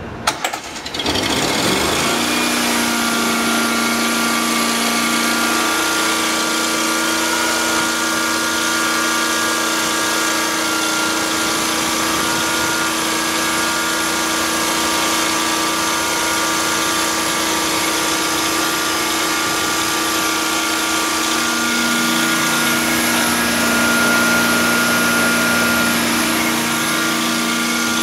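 Slayer truckmount carpet-cleaning machine started up: its engine fires about a second in and spins up, then runs steadily with a constant hum and a high steady whine.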